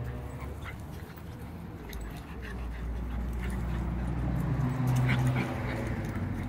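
A bull terrier puppy and a schnauzer play-fighting, with low dog vocal noises that grow louder around five seconds in.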